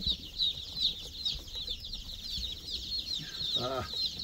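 Many day-old chicks peeping together, a dense, unbroken chorus of short high peeps. About three and a half seconds in, a brief lower-pitched call sounds over them.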